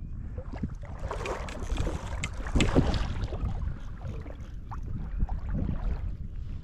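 Hooked bluefish splashing and thrashing at the surface close by, loudest about two and a half seconds in, over a steady rumble of wind on the microphone.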